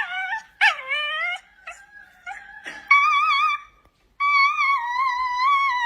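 A dog howling in a series of long, wavering notes with short breaks between them. The last note is held for about two seconds.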